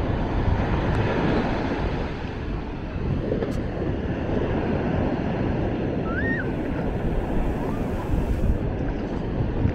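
Ocean surf washing steadily onto a sandy beach, with wind on the microphone. A brief faint high chirp sounds about six seconds in.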